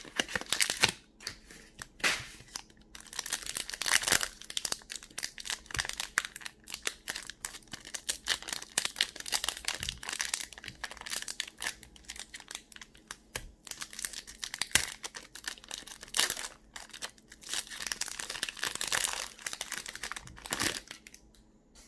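Foil wrapper of a Pokémon trading card booster pack crinkling and tearing as it is ripped open by hand and the cards are pulled out, a dense, irregular crackle.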